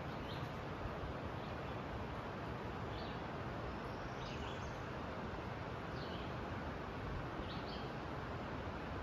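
Outdoor ambience: short, high bird chirps every second or two over a steady background hiss.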